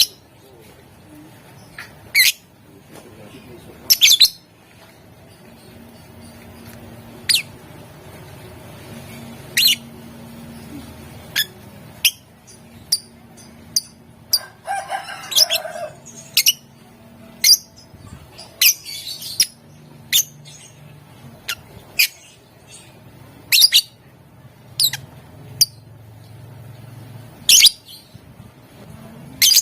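Lovebird giving short, shrill chirps, one every second or so, with a busier flurry of calls about halfway through.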